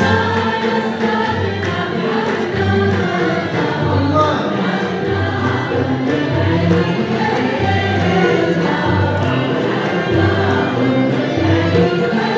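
A Moroccan madih ensemble performing a devotional praise song: men's voices singing together with ouds, over a low drum beat about once a second.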